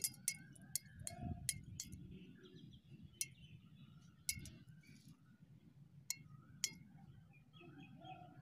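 Wet seed pods bursting inside a glass bottle, the flung seeds and pod pieces striking the glass: about nine sharp clinks at irregular intervals, each with a short ring.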